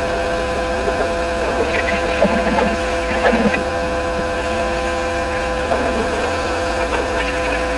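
Pressure washer running steadily with a constant motor-and-pump hum, the spray briefly changing a couple of times.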